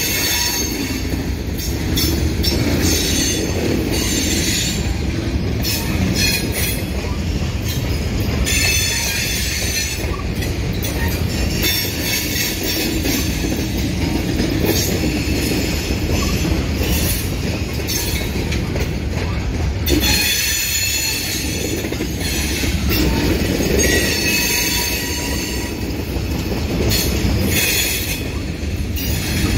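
Slow-rolling freight train of tank cars passing: a steady rumble of steel wheels on the rails, with stretches of high-pitched squealing from the wheels that come and go.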